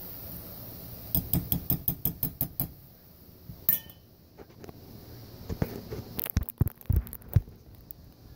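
Hot oil sizzling briefly, then a slotted metal spatula clinking against metal: a quick run of about eight taps, a single ringing clink near the middle as it is set down, and a few duller knocks near the end.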